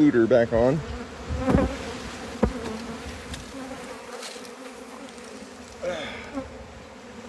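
Honeybee colony buzzing steadily around an opened hive, the bees stirred up by the frames being handled. Two sharp knocks of hive equipment come about one and a half and two and a half seconds in.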